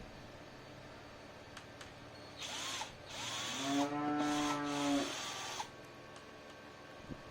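Electric drill motor spinning up, running for about three seconds in a couple of short bursts, then winding down, from about two and a half seconds in.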